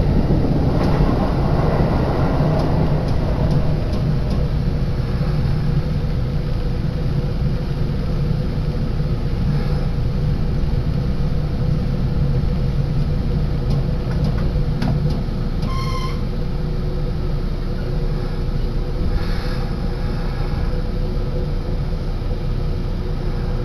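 Running noise of a Kintetsu electric train heard from inside the car, a steady low rumble with a faint steady hum, easing slightly as the train slows alongside the station platform. A short high beep-like tone sounds about two-thirds of the way through.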